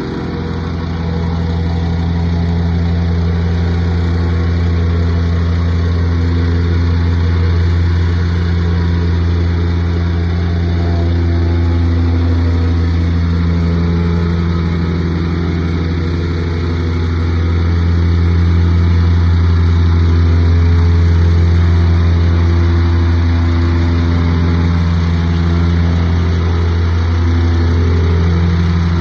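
An engine running steadily at idle, a deep even hum that grows slightly louder about two-thirds of the way through.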